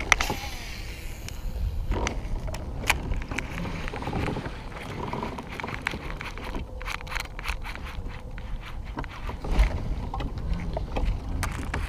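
Scattered sharp clicks and knocks of fishing gear being handled on a kayak, over a steady low rumble.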